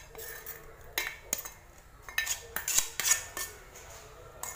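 A spatula scraping and knocking against a pan as dissolved china grass (agar) is scraped out into a glass bowl of pudding mix: a series of sharp clinks and scrapes.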